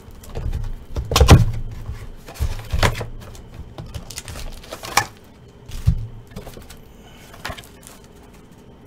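A cardboard trading-card hobby box being opened and its foil packs taken out and stacked on a table: a run of rustles and knocks, the loudest about a second in, growing sparser and fainter after about five seconds.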